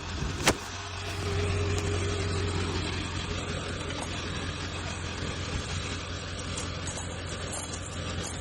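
A vehicle running, most likely being driven: a steady low engine hum with road noise that picks up about a second in. A single sharp click comes just before it.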